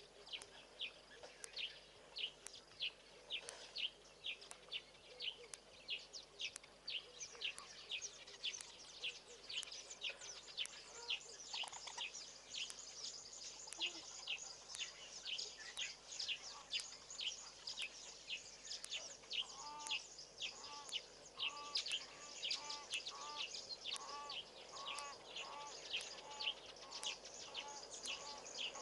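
Faint bush ambience of birds and insects. A short high chirp repeats about three times a second throughout, and a high insect hiss comes in after about eight seconds. From about twenty seconds a lower two-note bird call repeats steadily.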